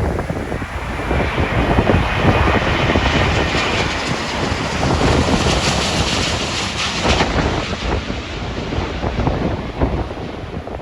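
Jet airliner passing on landing approach: its engine noise swells over the first couple of seconds, holds, then fades after about seven seconds. Heavy wind buffeting on the microphone throughout.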